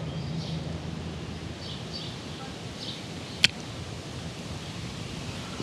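Outdoor ambience: a steady low background noise with faint, short bird chirps now and then, and a single sharp click about three and a half seconds in.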